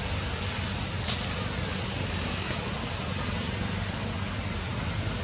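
Steady outdoor background noise with a low rumble, broken by one short sharp click about a second in.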